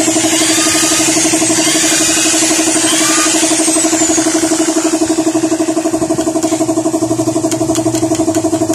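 A motor running steadily with a fast-pulsing hum. Sweeping electronic music sounds play over it for the first few seconds, and faint clicks come in the second half.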